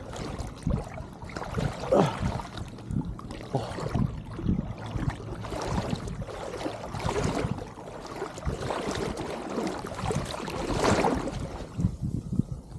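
Shallow seawater sloshing and splashing in uneven surges as a wader moves through it with a scoop net.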